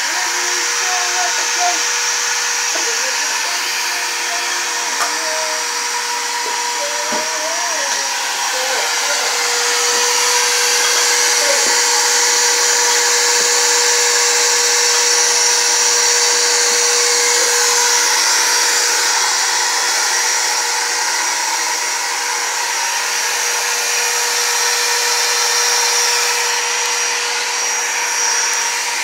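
Shop vacuum running with a steady motor whine, a little louder for several seconds in the middle.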